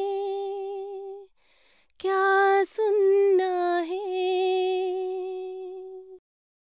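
A female voice singing a Hindi song unaccompanied, in long held notes. There is a short breath-break about a second in, and the singing stops about six seconds in.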